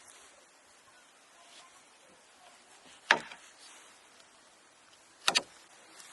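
Sharp knocks over a faint steady background: one about three seconds in, then a quick double near the end.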